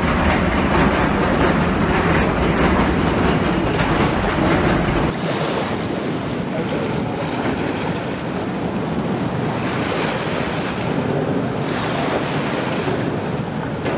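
Wind rumbling on the microphone while riding a bicycle. About five seconds in it gives way to small waves washing in over rocks and pebbles on the shore, with a rushing sound that swells and eases.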